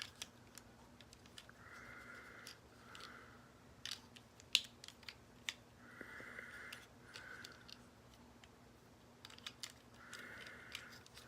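Scattered small clicks and soft scraping of hard plastic toy parts being handled, as a Headmaster figure is worked into a Transformers toy's cockpit and won't seat easily.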